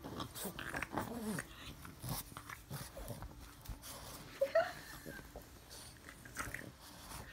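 Boston Terrier puppy licking and scrabbling at a person's face, with scattered short noises and two brief whines, one about a second in and one about four and a half seconds in.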